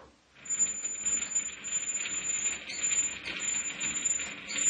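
Harrison M300 lathe carriage being wound along the bed by hand at the apron handwheel, starting about half a second in: an uneven, continuous rattling clatter with a thin high whine that comes and goes. The clattering is caused by the top of the lead screw rubbing on the apron casting, and the apron has no oil in it.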